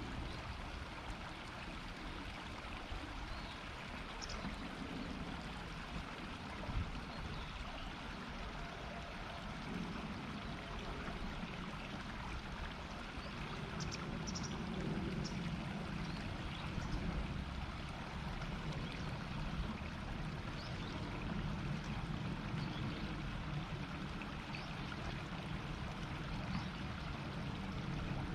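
Shallow river flowing and murmuring steadily over its bed, with a few faint short ticks and one brief knock about seven seconds in.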